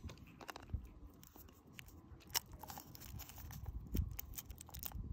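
Thin foil wrapper of a Kinder Surprise chocolate egg crinkling and tearing as it is peeled off by hand, a run of irregular sharp crackles.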